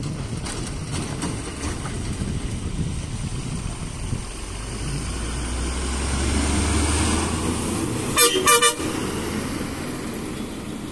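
Tanker lorry's diesel engine pulling up the hairpin, growing louder as it passes close and then fading away. A horn sounds twice in short blasts about eight seconds in.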